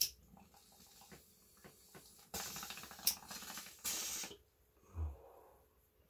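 Glass water bong being lit and drawn on: a lighter click at the start, faint bubbling and crackle while the bowl is lit, then about two seconds of loud, fast bubbling during a hard pull. A brief low throaty sound follows about five seconds in.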